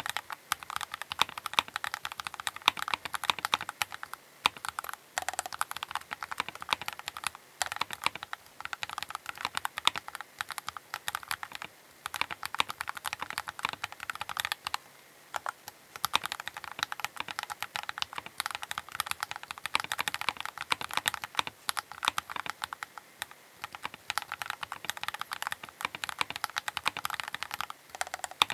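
Keychron K8 Pro mechanical keyboard being typed on in fast, continuous runs of key clicks, with a few short pauses between bursts.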